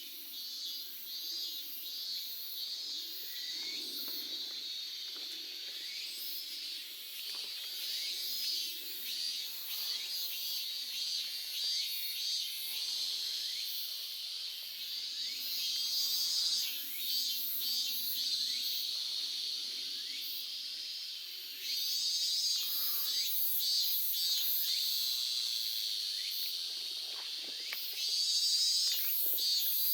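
A small stream babbling and gurgling, with a continuous high chirring of insects over it. It grows louder about two-thirds of the way through, and again near the end.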